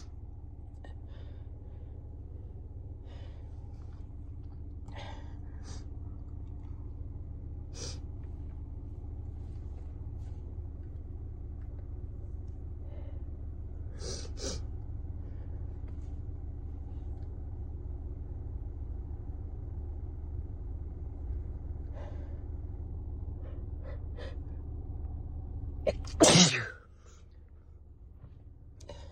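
A person with a cold takes a few short breaths, then gives one loud sneeze near the end, over a steady low rumble inside a car.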